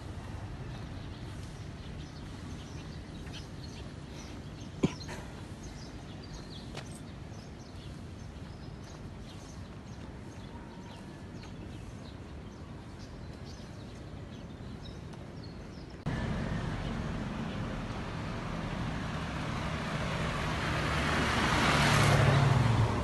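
Outdoor city ambience with one sharp click about five seconds in. After an abrupt jump to louder street noise about sixteen seconds in, a car drives past close, swelling to its loudest near the end.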